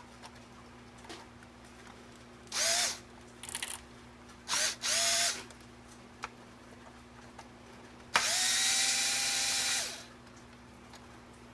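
Ryobi cordless drill backing out the small hex-head screws on top of an RC truck chassis: three short bursts of the motor, each rising in pitch then holding, with faint clicks between them, then a steady run of nearly two seconds near the end.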